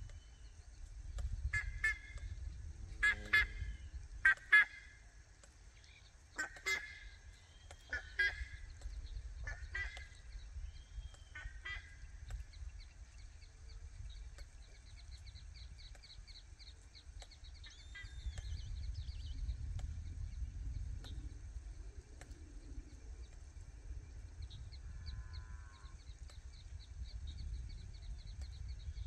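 Farm birds calling: a run of short, harsh calls, often in pairs, with the loudest about three to five seconds in, then only a few faint twittering trills. Wind rumbles low on the microphone throughout.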